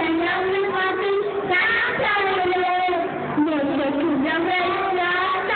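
Young girls singing a song together into microphones, with held notes, over strummed acoustic guitars.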